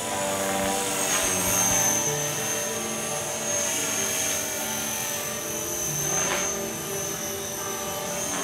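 Blade 450 3D electric RC helicopter in flight, giving a steady high whine from its motor and rotors, over background music.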